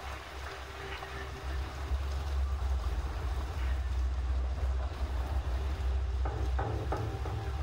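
Heavy rain hissing against a window, with a steady low drone underneath that drops out briefly near the end.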